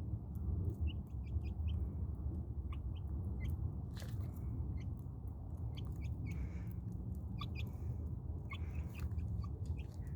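Backyard chickens making short chirps and soft clucks at irregular moments, with a few sharp clicks, over a steady low rumble.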